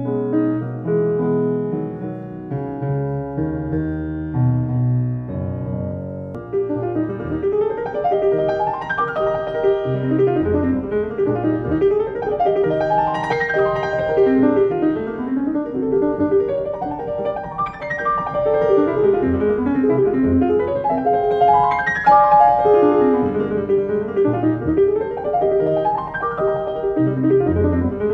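Solo grand piano played live: slower, lower notes and chords at first, then from about six seconds in, fast runs that sweep up the keyboard and fall back again, over and over.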